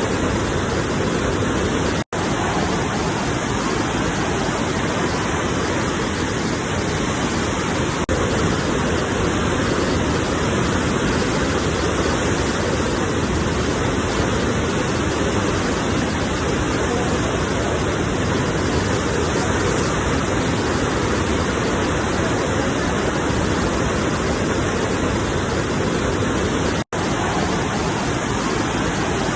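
Ocean waves and surf making a steady, dense rushing wash. It cuts out for an instant twice, about two seconds in and near the end.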